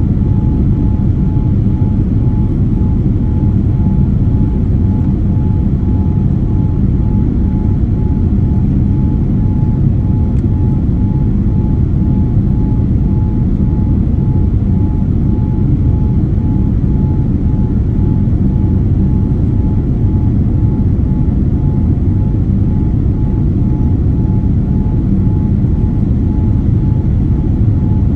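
Steady engine and airflow rumble inside the cabin of a Boeing 787-9 airliner in flight, with a steady whine on top.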